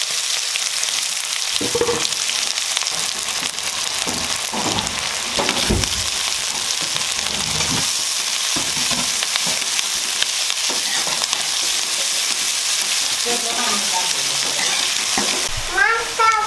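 Sliced onions sizzling in hot oil in an aluminium kadai, stirred with a metal spatula that scrapes and knocks against the pan every second or two. The sizzle thins near the end.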